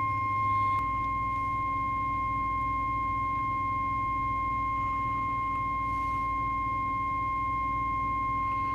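Steady 1 kHz audio test tone, held unbroken at an even level with fainter higher tones above it, keyed into a CB radio to set its modulation. A low hum sits underneath.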